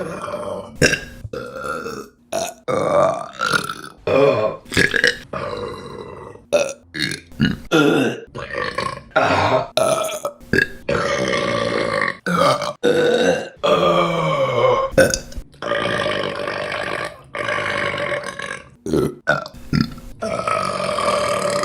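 Women burping, one burp after another in quick succession: many short burps and several long, drawn-out ones, each starting and stopping abruptly.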